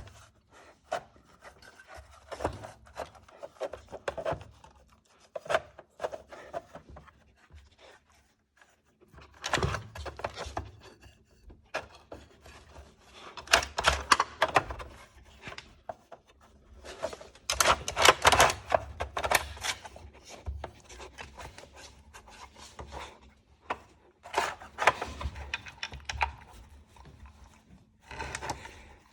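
A dog puzzle toy being worked by a puppy: pieces scraping and rubbing, with irregular clusters of knocks and clacks and quieter pauses between.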